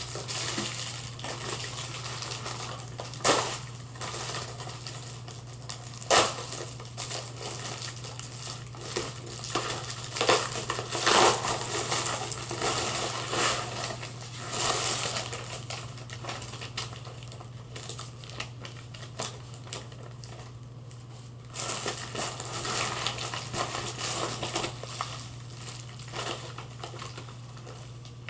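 Plastic wrapping being crinkled and crumpled by hand, in irregular rustling spells with a few sharp clicks and taps in between.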